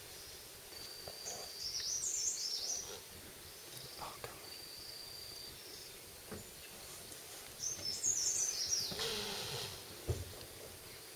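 Birds chirping in short bursts against forest background noise, with a few thin steady whistles. Near the end there is a brief rustling noise and a single low bump.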